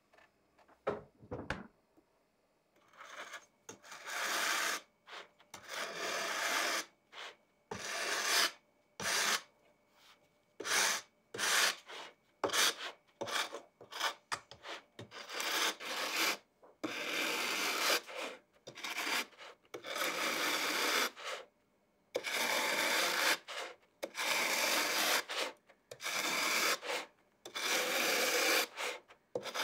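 Fine rasp grater filing down the rim of a baked tart shell: a long series of dry rasping strokes, some short and some longer, with brief pauses between them. A few faint clicks come first.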